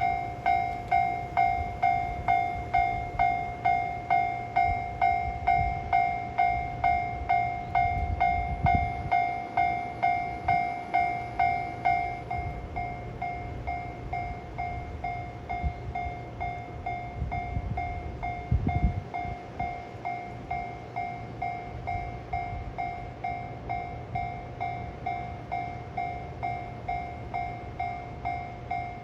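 Japanese railway level-crossing alarm ringing its electronic bell about twice a second, a repeating pitched 'kan-kan' strike. About twelve seconds in it drops to a noticeably quieter ring and carries on.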